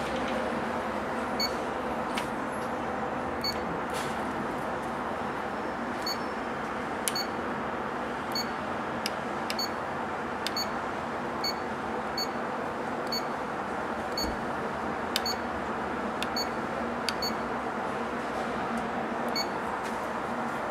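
Aftermarket car touchscreen head unit giving a short high key beep with each stylus tap, about once a second, with faint taps on the screen. A steady hiss runs underneath.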